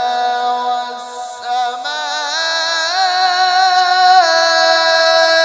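A man's voice reciting the Qur'an in melodic tajweed style, drawing out the end of a verse in long held notes. A short breath about a second in, then one long note that steps up in pitch twice and drops near the end.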